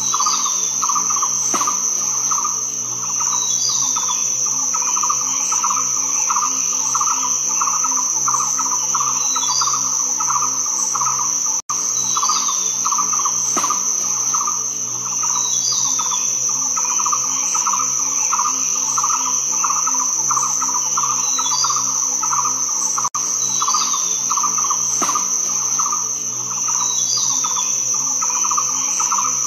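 Insect chorus: a loud, steady high-pitched whine over a fast pulsing trill, with a short bird chirp every few seconds. The same stretch of ambience repeats, cutting out for an instant about every 11 seconds where it loops.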